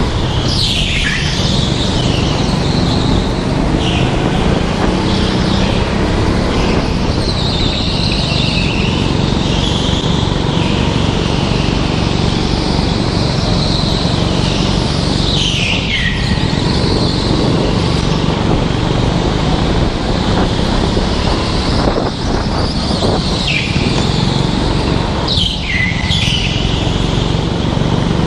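Onboard sound of a rental go-kart running flat out: its engine drones steadily, and the tyres squeal through the corners several times, each squeal sliding down in pitch.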